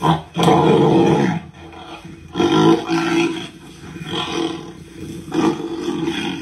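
Tigers fighting: a run of harsh roars and snarls in repeated bursts, the longest lasting over a second right at the start and another loud one about two and a half seconds in, with shorter snarls after.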